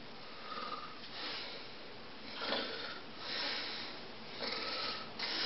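A person's soft breathing and sniffing: a string of about six short breathy swells.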